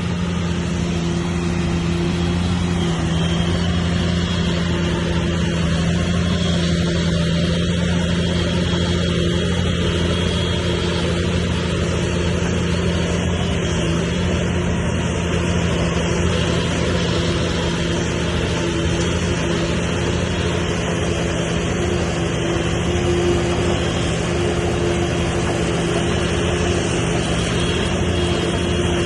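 Heavy diesel engine of earthmoving machinery running steadily at a constant pitch, with no revving.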